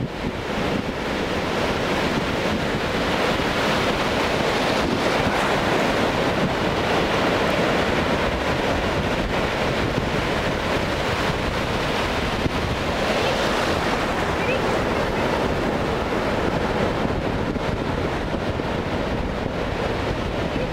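Ocean surf breaking and washing through the shallows, a steady rush that swells and eases every few seconds, with wind buffeting the microphone.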